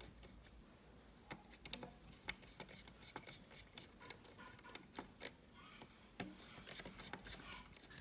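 Faint, irregular small clicks and taps over a low steady hum, close to near silence.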